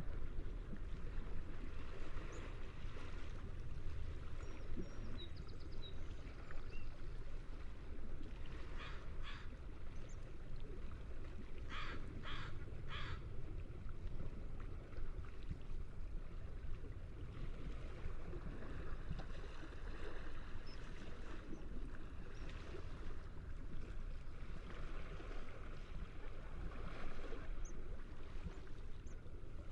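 Seagulls calling over the steady low rush of the sea: a couple of calls about a third of the way in, then three sharp calls in quick succession near the middle, with fainter cries scattered through.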